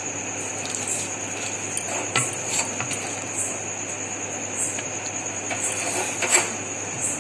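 Steel ladle knocking and clinking against a stainless steel pot and serving bowl as curry is ladled out, a few light knocks with the loudest about six seconds in, over a steady hiss.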